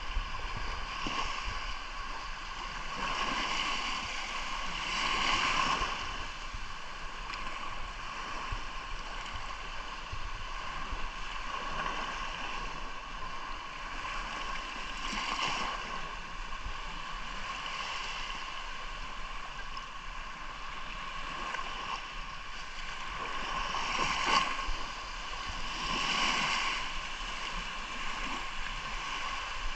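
Sea surf: waves washing in and drawing back, the wash of noise swelling and fading again every few seconds.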